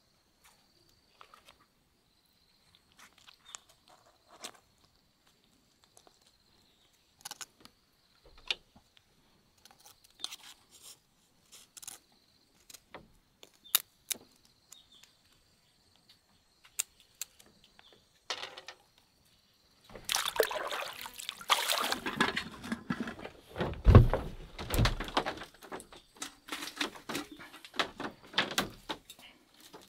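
Scattered light knocks and clicks over a faint steady high insect drone. About two-thirds of the way through, a louder stretch of splashing, pouring water sets in, with a couple of heavy thumps.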